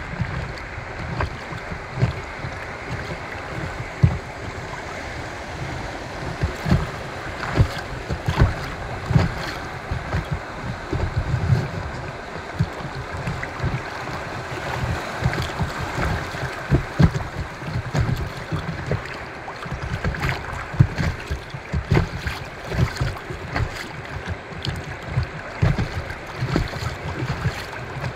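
Fast river current rushing and splashing around an inflatable kayak, with irregular low thumps and wind on the microphone.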